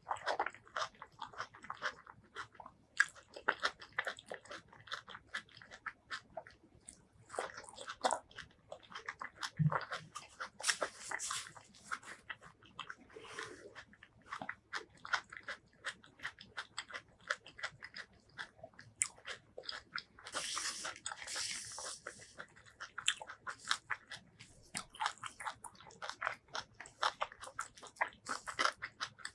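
Close-miked chewing of raw tomato and rice, with many small wet clicks, crunches and smacks. Near the end, fingers squish and mix rice on a banana leaf.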